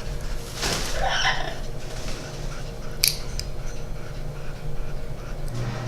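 Nail clipper snipping through a Red-lored Amazon parrot's toenail, one sharp click about three seconds in. A short noisy sound of handling comes about a second in, over a steady low hum.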